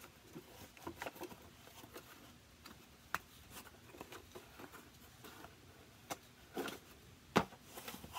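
Baseball cards being handled and flipped through by hand: light rustling and flicks of card stock, with a sharp click about three seconds in and a louder one near the end.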